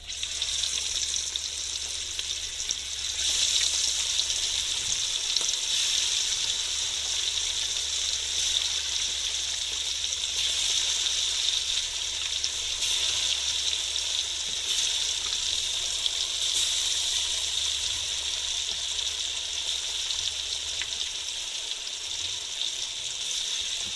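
Masala-coated fish pieces frying in hot oil in a pan, a steady continuous sizzle. A low steady hum runs underneath and fades out near the end.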